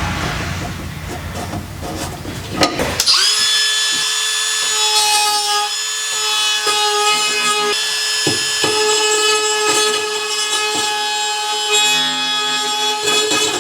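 A power tool spinning up about three seconds in and then running at a steady high pitch, with a few clicks, after a stretch of rougher, even noise.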